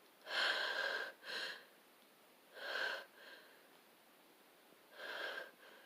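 A person's breathy nasal bursts during a sneezing fit: three loud ones a little over two seconds apart, each followed by a shorter, softer one.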